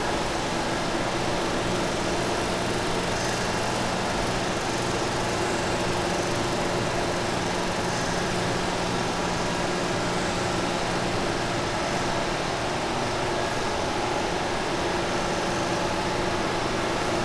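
Steady machine hum over an even hiss, holding a few fixed low tones without change.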